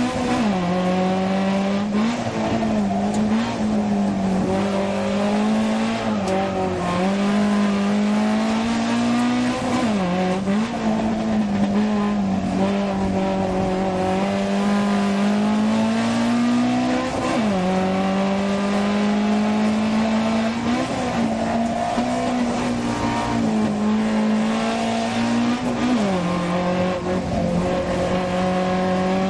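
Alfa Romeo GT 2000 Veloce's twin-cam four-cylinder engine driven hard, heard from the cockpit. Its pitch climbs steadily and falls sharply, again and again, as the revs rise and drop through the run.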